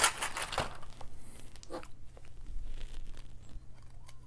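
Plastic packaging crinkling and rustling, with small clicks and taps, as parts of a model airplane are handled and taken out of their plastic tray. The handling noise is busiest in the first second, then thins to scattered light ticks.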